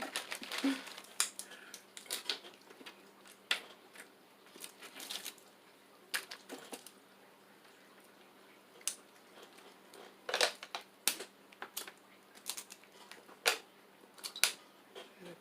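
Mouth and hand sounds of eating seafood-boil food: irregular sharp clicks and cracks of shells being broken and picked, with chewing, sparse in the middle and coming thick and fast near the end.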